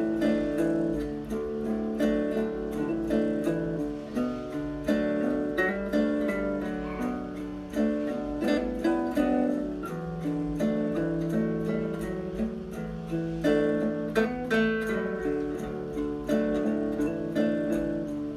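Background music: acoustic guitar played with plucked and strummed chords at a steady pace.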